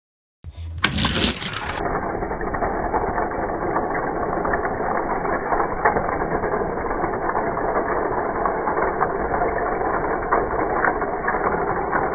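Die-cast toy cars rolling down a toy drag-strip track: a sudden start about half a second in, then a steady, dense rattling clatter of small wheels and axles, muffled after the first second or so.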